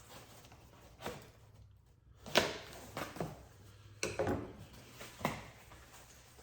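A package being handled and opened: irregular scraping and rustling, the loudest about two and a half seconds in.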